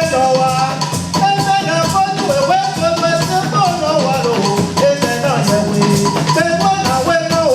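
Music with a melody over a steady bass and shaker-like percussion keeping a quick, even rhythm.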